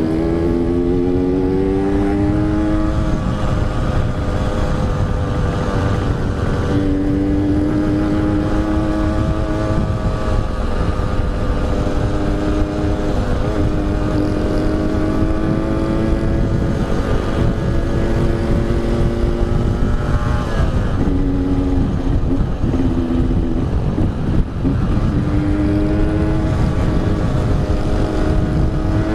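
Yamaha RX-King's two-stroke single-cylinder engine pulling under way, its pitch climbing and dropping several times as the throttle and gears change, over a steady low rush of wind.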